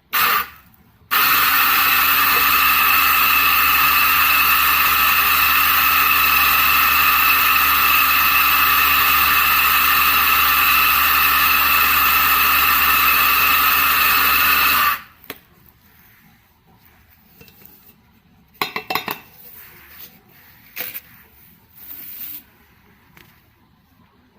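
RACCEA JX650 electric coffee grinder with 74 mm burrs running steadily for about fourteen seconds, then stopping abruptly. A few light clinks and knocks follow.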